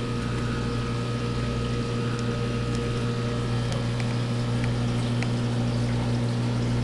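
Aquarium pump humming steadily over a constant wash of moving water, with a few faint ticks.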